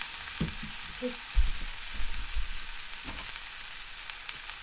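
Rice noodles and vegetables sizzling steadily in a hot oiled pan during stir-frying, with a few dull knocks about a second and a half in and around two seconds.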